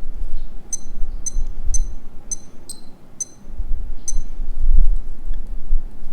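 Casio TRI-10W digital watch beeping as its buttons are pressed: seven short, high electronic beeps about half a second apart, ending about four seconds in, over a low handling rumble.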